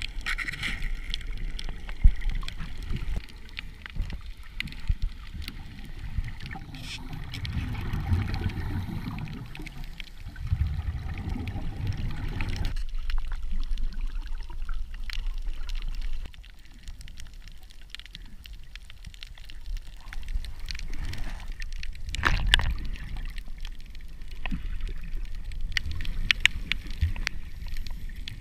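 Muffled underwater sound through a camera housing: water movement and gurgling, diver's air bubbles, and scattered sharp clicks and knocks, with the mix shifting abruptly a few times.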